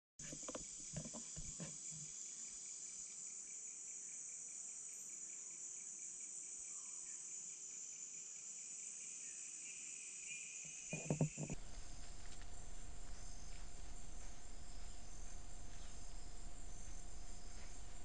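Chorus of crickets and other insects: a steady high-pitched trill with a faster pulsing chirp beneath it. A few soft thumps near the start and a louder pair about eleven seconds in, after which the sound turns rougher, with a low rumble and a steady hum under the insects.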